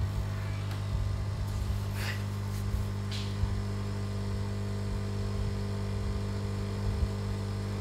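Dual-boiler espresso machine's pump running with a steady hum while it extracts tea through the portafilter in tea mode.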